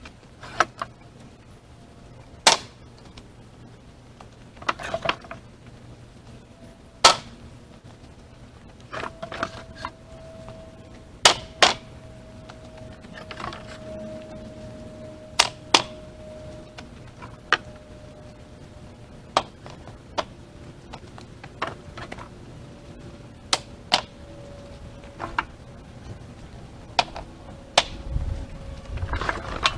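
Split firewood pieces knocking against one another as they are set down on a woodpile, one sharp wooden clunk every second or two, some in quick pairs.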